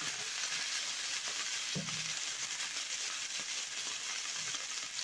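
Fish fillets sizzling steadily in hot oil in a frying pan, with a fine crackle of spitting fat.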